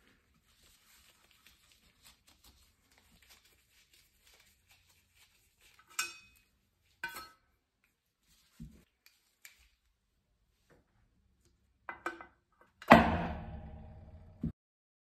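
A few light clicks and knocks from the metal parts of a 1970s lamp being handled. About 13 seconds in comes a loud metallic clang from the round sheet-metal lamp housing, which rings like a pan for over a second and then cuts off suddenly.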